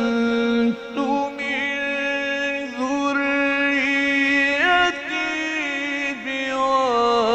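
A male Quran reciter's voice in the ornamented Egyptian mujawwad style, holding long drawn-out notes with melismatic turns. The notes are broken by short pauses about a second in, near the middle and late on.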